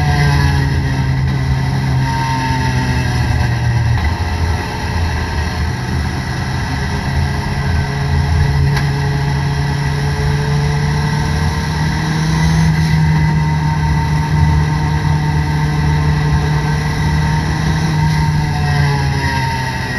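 Toyota Corolla race car's engine heard from inside the cabin, running at steady moderate revs, with its pitch drifting slowly down and back up, over road and tyre noise. This is the car cruising behind the safety car.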